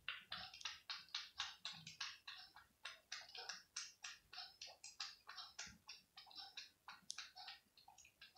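A domestic cat lapping milk from a plate: quick, even tongue clicks, about four or five a second.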